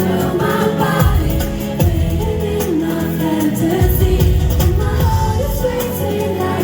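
Pop music with singing and heavy bass, played loud over a concert sound system.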